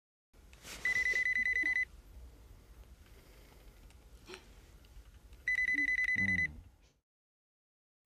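Home telephone ringing twice, each ring a fast-pulsing high tone about a second long, the rings about four and a half seconds apart.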